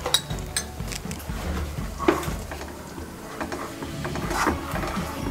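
Wooden spatula stirring thick white sauce in a non-stick pan, scraping along the pan and knocking against it a few times, with a longer scrape near the end.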